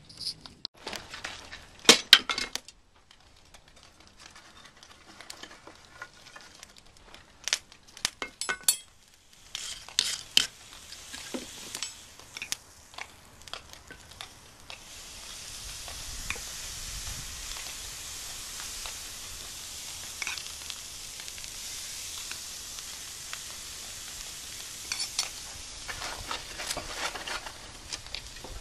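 Steel tongs and a metal spoon clinking and knocking against a red-hot steel billet as borax flux is spooned onto it for forge welding. From about halfway through, a steady hiss sets in under a few scattered clicks.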